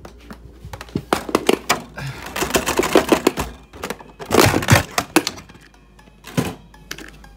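Hard plastic clattering, with a quick run of clicks and knocks, as an RC drift car's body shell is taken off and the chassis is handled. The handling is densest and loudest from about two to five seconds in, under background music.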